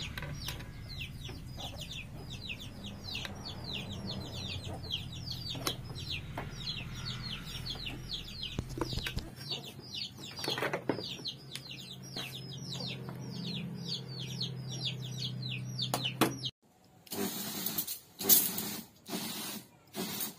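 Chicks peeping continually over a steady low hum. About three-quarters of the way through, this cuts to an electric knapsack sprayer's nozzle spraying water in short hissing bursts, less than a second apart: the repaired pump is working.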